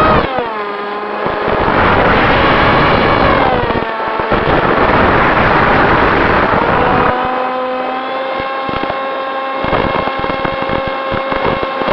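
Radio-controlled model airplane's motor and propeller whining, the pitch dropping just after the start, climbing again, then holding steady for the last few seconds, with strong wind buffeting the microphone.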